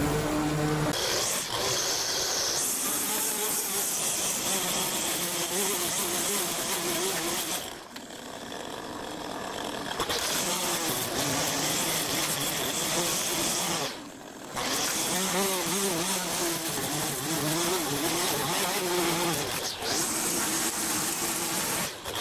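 Petrol string trimmer running at high revs, its engine note wavering as the line cuts through grass, with two brief dips about eight and fourteen seconds in. It opens with about a second of a walk-behind mower's engine running steadily.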